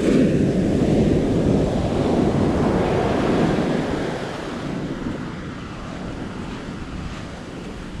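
Ocean surf breaking and washing up the beach, with wind buffeting the microphone. The rushing noise jumps up suddenly at the start and eases off after about four seconds.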